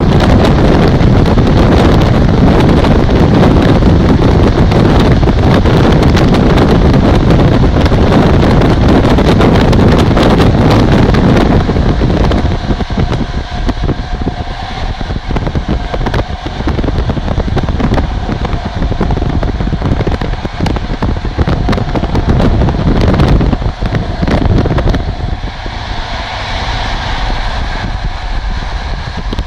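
Heavy wind buffeting a microphone held out of the window of an express passenger train running at speed, over the steady running noise of the train on the track. The wind eases about twelve seconds in, leaving the running noise with a faint steady tone above it.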